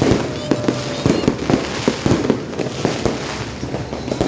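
Fireworks and firecrackers going off in rapid, irregular succession: many sharp bangs and pops, several a second, overlapping one another.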